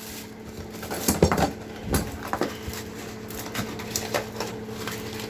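Scattered knocks and rustling as old toilet parts and debris are pushed into a trash bag, over a steady low hum.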